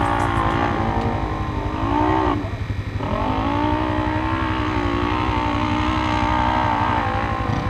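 Polaris RZR side-by-side's engine revving hard. The revs climb, cut out briefly about two and a half seconds in, then build again and hold high.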